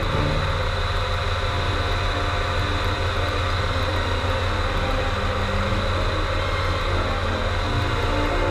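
Rotax 912ULS four-cylinder engine of a Powrachute Airwolf powered parachute running steadily in flight, heard from the cart.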